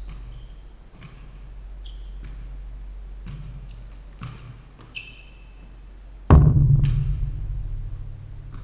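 Basketball dribbling and sneakers squeaking on a hardwood gym floor, then about six seconds in a loud bang as the ball strikes the glass backboard and rim right at the microphone, ringing on low and fading over a couple of seconds.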